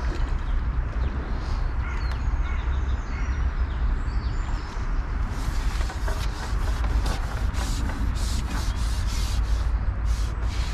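Wind buffeting the microphone with a steady deep rumble, with birds chirping. From about halfway, a run of short, high ticks comes about three a second.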